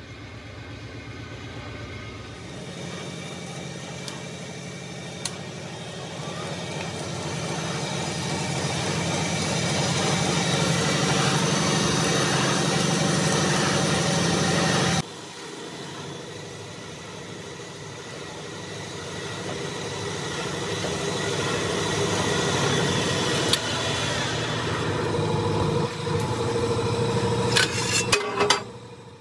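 Rim rolling machine running as a steel tractor wheel rim spins against its forming roller, a steady mechanical hum that grows louder for about twelve seconds. It drops off suddenly about halfway, builds up again, and ends with a few sharp metal clicks.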